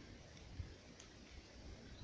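Faint rain and wind: a soft steady hiss, with light low rumbles of wind on the microphone.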